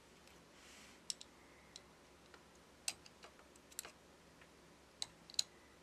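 Faint, scattered small clicks and taps, about eight in all, as a plastic pry tool and fingers touch a smartphone motherboard and its metal shields. The clearest come about three seconds in and near the end.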